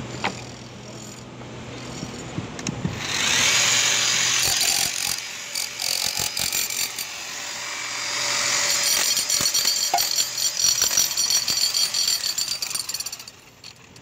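Corded electric demolition hammers chiselling concrete. A rapid hammering starts about three seconds in, breaks into short bursts, then runs hard again until shortly before the end.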